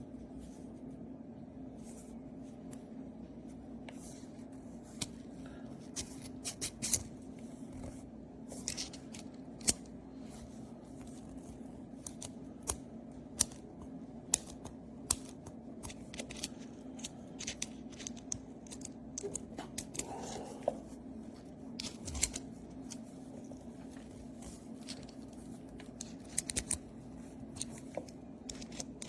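Irregular sharp clicks and light knocks of small hard parts being handled, with a steady low hum underneath.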